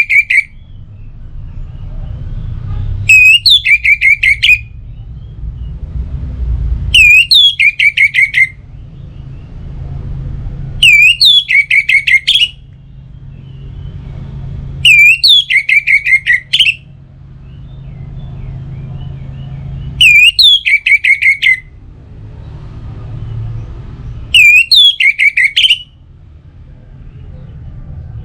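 Orange-headed thrush call used as a lure. A short phrase of a few sharp downward-sweeping whistles, followed by a quick run of about seven chirps, repeats the same way about every four seconds, six times over.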